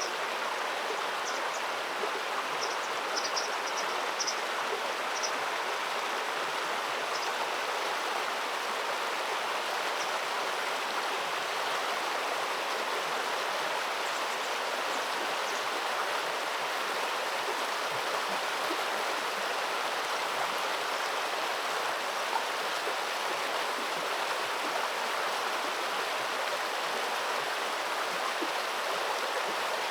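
Steady rushing of flowing river water. A few short, high bird chirps come through in the first several seconds.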